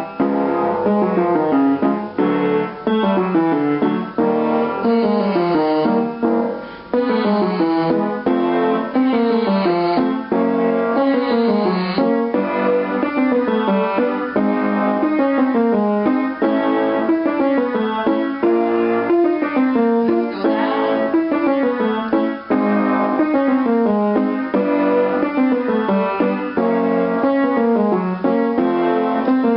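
Piano accompaniment for a vocal warm-up, playing a falling scale figure over and over, each run about two seconds long.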